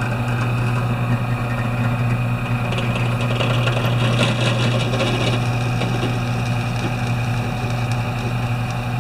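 Drill press running with a steady electric-motor hum while drilling a small hole in a small part, with a little extra higher-pitched cutting noise about three to five seconds in.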